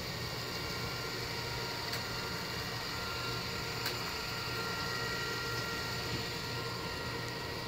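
Ecovacs Deebot M80 Pro robot vacuum running on a hardwood floor: a steady motor and suction-fan hum, with two light clicks about two and four seconds in.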